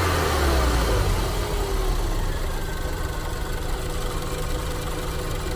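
Land Rover engine dropping from a fast idle of about 3000 rpm back to a steady idle over the first couple of seconds, then idling evenly. It is being run to bleed air out of the freshly refilled cooling system.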